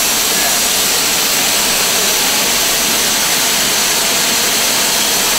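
LMS Stanier Class 5 4-6-0 steam locomotive standing still and blowing off steam: a loud, steady hiss that does not change.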